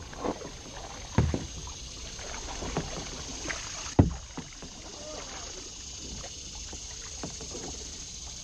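Kayak paddling: paddle strokes in the water and water lapping on a plastic kayak, with a few sharp knocks, the loudest about four seconds in.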